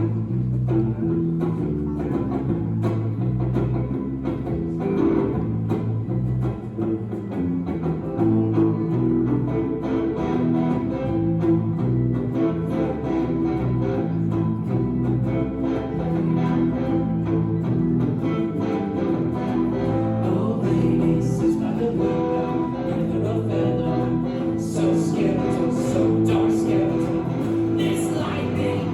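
A live band playing a song, with guitar prominent, recorded on a cell phone in the room.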